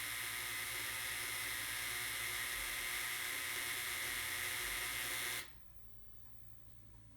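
Solar power conditioner making an abnormal noise: a steady, harsh hissing buzz that switches on suddenly and cuts off abruptly about five and a half seconds in. It is the fault noise of a unit whose grid tie has stopped working.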